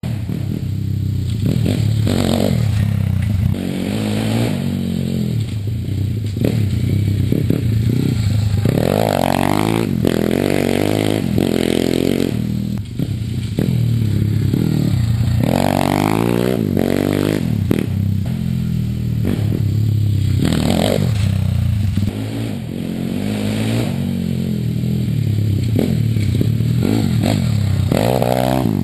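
Pitster Pro LXR pit bike engine running as it is ridden around, the revs rising and falling with sharp climbs in pitch several times as the throttle is opened.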